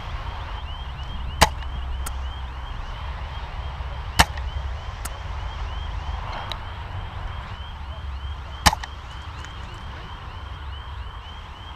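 Airsoft sniper rifle firing three sharp single shots, spaced a few seconds apart, with a couple of faint clicks between them.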